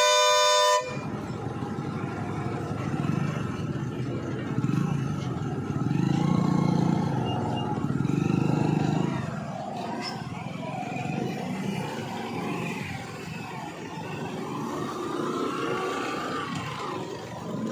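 A vehicle horn sounds and cuts off about a second in. Then comes steady traffic noise of a heavy truck and motorcycles running close by, louder for a few seconds in the middle.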